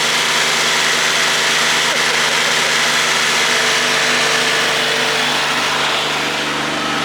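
Kubota D1105 three-cylinder diesel running steadily under a little throttle, driving the rider vacuum's fan, which moves a rush of air.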